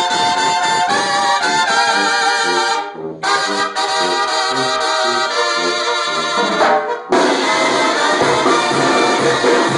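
A Mexican banda brass section playing live: trumpets, trombones and sousaphone. The music breaks off briefly about three seconds in and again around seven seconds, then the full band comes back in.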